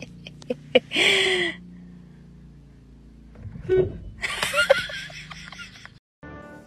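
A person laughing breathily in short bursts, about a second in and again around four seconds in, with a few sharp clicks just before the first burst.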